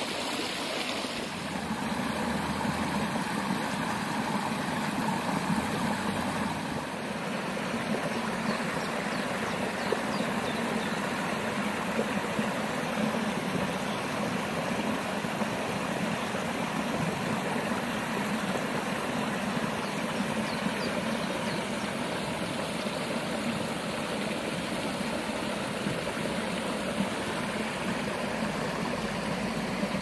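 A spring meltwater stream in flood, rushing and splashing over rocks with a steady water noise that shifts slightly in character about a second in and again around seven seconds in.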